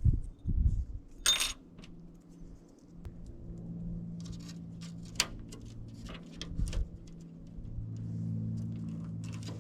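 Handling noises from working on a window screen frame and repair-kit parts: a few low thumps, a brief metallic clatter about a second in, then scattered light clicks over a low steady hum.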